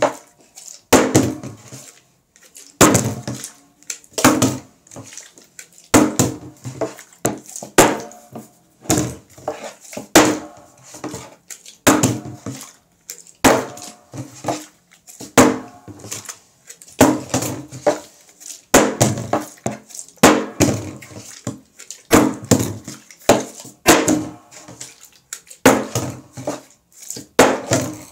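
A bottle tossed again and again in bottle flips, landing or toppling on a wooden tabletop: a sharp thud and short clatter every second or two.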